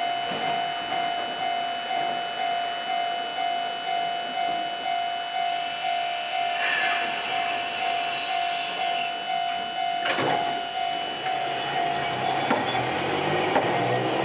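Chikuho Electric Railway tram standing at the platform with a steady electrical hum and a repeating beeping tone. A hiss of air sounds for a few seconds in the middle, then a single clunk. Near the end its traction motors start whining, rising in pitch as it pulls away.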